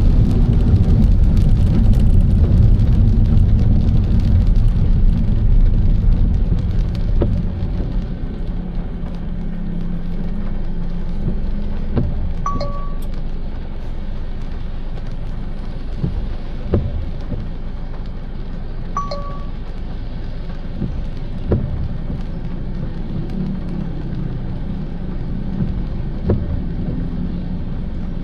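Road and rain noise inside a moving car's cabin, a steady low rumble that eases off after about six seconds. A soft knock comes about every five seconds, and two short identical beeps sound about six seconds apart.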